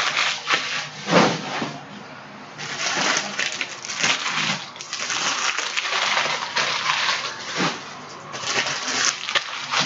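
Trading cards and their packaging being handled: an irregular run of dry rustling and sliding, with a few sharper clicks.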